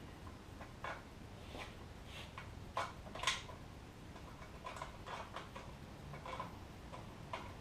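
Light, irregular metallic clicks and taps of hand tools and loose metal parts being handled during scooter disassembly, the sharpest a little past halfway.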